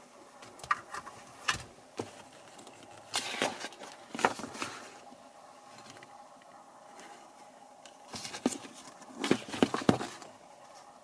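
Paper pages of a printed manual being handled and turned: several short bursts of rustling and crinkling, the busiest in the middle and near the end, over a faint steady hum.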